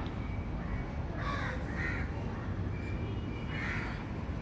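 A crow cawing three times, in short harsh calls, over a steady low background noise.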